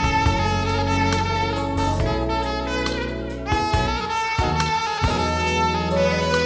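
Live instrumental music: a horn lead holding long notes over drums and bass, changing note about halfway through.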